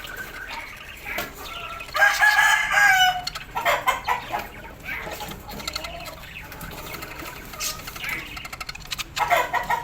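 Birds calling: one loud, drawn-out call with a falling pitch about two seconds in, a quick run of calls just after it, softer calls in between, and another loud call near the end.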